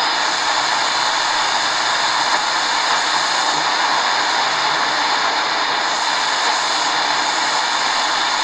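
Shortwave static hissing steadily from the speaker of a Tecsun R-9700DX portable radio, with no station coming through.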